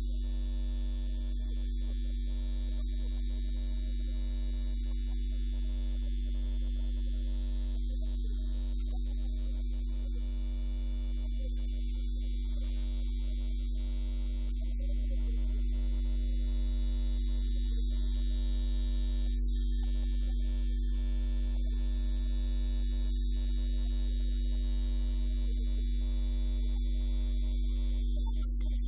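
Steady electrical mains hum, deep and constant, with a few fainter steady tones above it; it gets slightly louder about halfway through.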